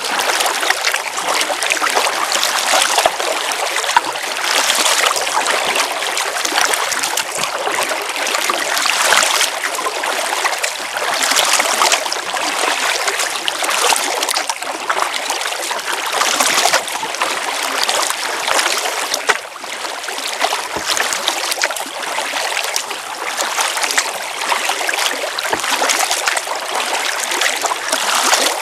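Water rushing and splashing along the hull of a Venture Flex 11 kayak as it moves quickly downstream, close to the camera. The sound swells every two seconds or so.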